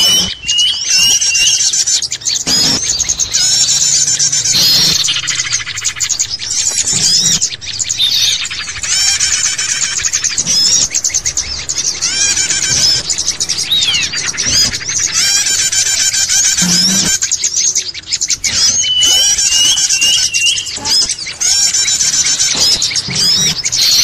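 Bird-lure recording of many small songbirds chirping and calling at once in a dense, continuous chorus. A short run of four whistled notes near the start comes back about 19 seconds in.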